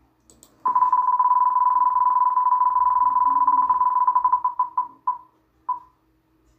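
Online spinning-wheel picker's tick sound effect: a fast run of short electronic ticks on one pitch that slows down about four seconds in, ending with two spaced-out ticks as the wheel comes to rest.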